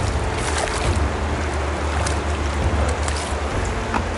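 Steady low wind rumble on the microphone over the rush of flowing river water, with a few scattered sharp ticks.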